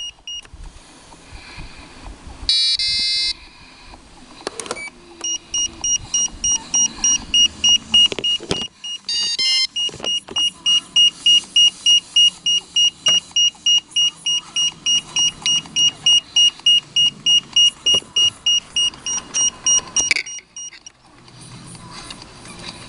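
Iris+ drone radio transmitter beeping over and over, about two short high beeps a second, with a brief burst of tones about three seconds in and a quick run of tones near nine seconds. The beeping stops about twenty seconds in, and there are a few clicks.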